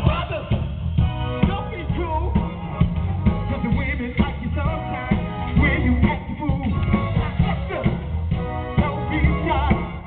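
Live band playing through PA speakers: a drum kit keeping a steady beat under heavy bass, with keyboards, electric guitar and a man singing.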